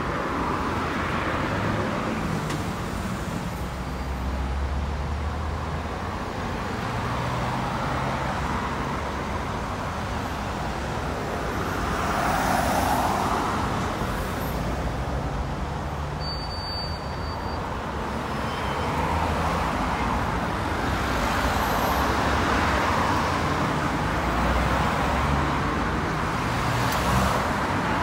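Road traffic: cars and double-decker buses passing, a steady mix of engine hum and tyre noise. It swells louder as vehicles go by, about twelve seconds in and again through the last third.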